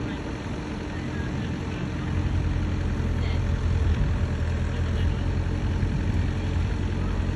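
Mini excavator's diesel engine running steadily, with a low, even engine hum.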